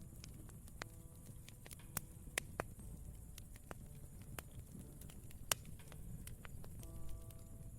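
Wood campfire crackling: irregular sharp pops and snaps over a low steady rumble, the loudest pop about five and a half seconds in. Soft piano notes sound faintly now and then, with a held chord near the end.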